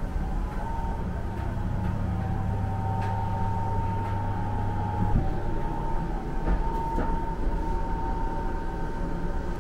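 Steady low mechanical rumble with a faint steady high hum and a few light clicks.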